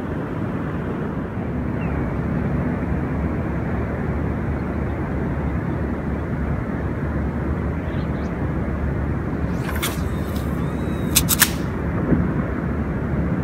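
Wind buffeting the microphone: a steady low rumbling noise. A few sharp clicks come about ten and eleven seconds in.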